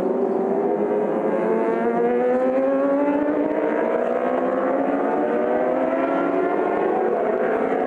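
A pack of endurance-racing superbikes accelerating out of a corner, several engines overlapping and rising slowly in pitch together.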